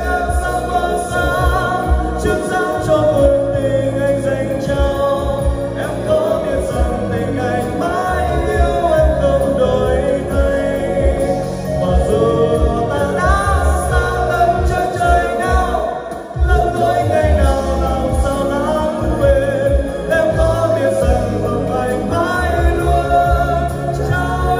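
A man sings karaoke into a handheld microphone over a backing track with a heavy bass beat, all played loud through an event PA system. The music dips briefly about two-thirds of the way through.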